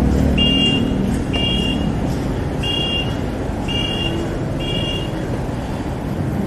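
Electronic beeper sounding five short high beeps, about one a second, each a brief chord of two or three tones, stopping about five seconds in. Under the beeps is steady traffic and wind noise.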